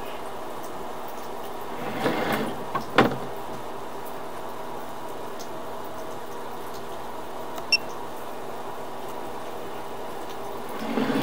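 Sewer inspection camera gear being handled as the push cable is drawn back out of the pipe. A steady hum runs underneath, with a brief rustling scrape about two seconds in, sharp clicks just after it, and one more click near eight seconds.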